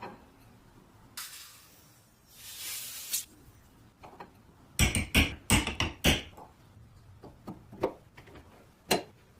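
Sharp knocks and clicks from handling the numbering machine and tools, a quick cluster of loud knocks about five seconds in, then scattered clicks and a last knock near the end. Two brief hissing sounds come before the knocks.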